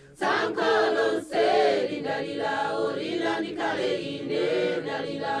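A choir singing together in harmony, with several voices on a slow melody; the singing breaks off for a moment at the very start and then resumes.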